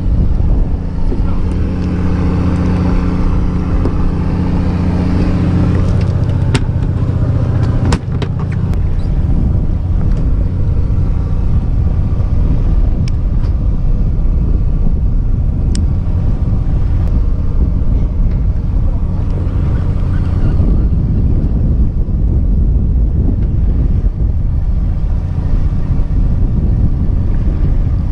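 Fishing boat's motor running with a steady low drone, with a few sharp clicks and knocks scattered through it.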